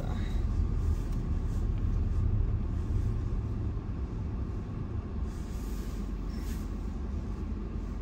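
Steady low rumble of a car's engine and tyres, heard from inside the cabin while driving slowly.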